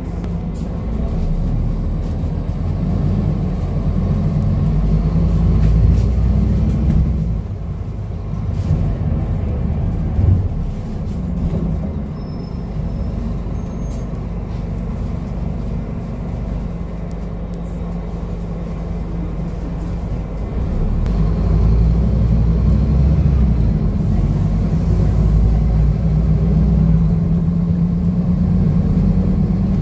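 Scania N230UD double-decker bus's five-cylinder diesel engine heard from the upper deck as the bus drives. The engine note rises under acceleration and drops about seven seconds in. It is quieter and steadier through the middle, then louder again near the end as the bus pulls on.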